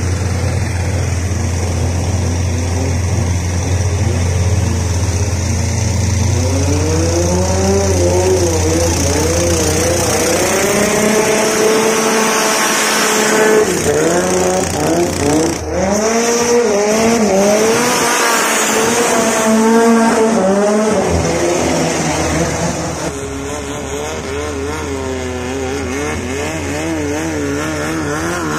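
Thai longtail boat engines running loud: a steady low drone under the rush of water, with other longtail boats' engines revving past, their pitch climbing and falling and loudest around the middle. Near the end a different engine pitch wavers.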